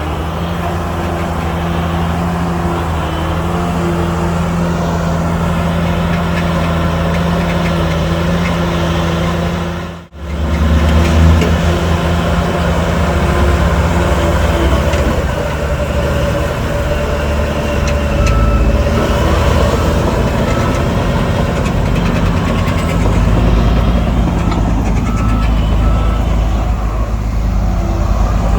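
Heavy diesel earthmoving machinery running steadily. The sound drops out sharply about ten seconds in, then resumes. In the second half there is a faint, evenly repeated beep, like a reversing alarm.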